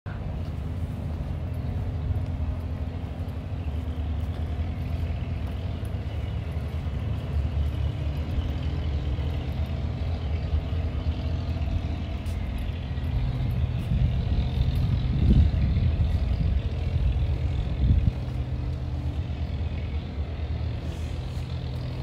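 Steady low mechanical rumble with a few held pitched tones in it, the kind of engine hum PANN files under vehicles, swelling a little past the middle with two dull low thumps. Light footsteps on stone paving tick faintly over it.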